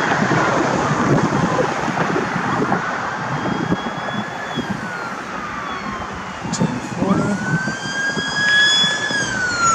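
An emergency vehicle siren in wail mode, sweeping slowly up and down in pitch over the rumble of passing road traffic. About seven seconds in it climbs sharply, holds high, then slides steadily down near the end.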